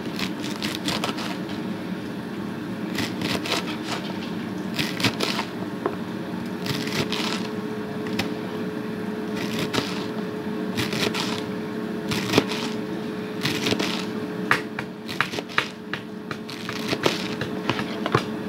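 Sharp kitchen knife slicing through a roll of collard green leaves in quick runs of short cuts, over a steady low hum.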